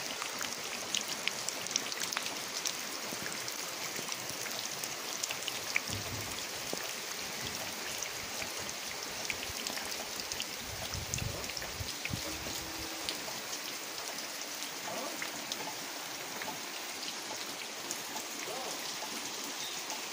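Heavy monsoon rain pouring onto muddy ground and splashing into the runoff water flowing over it: a steady hiss dotted with the clicks of countless drops.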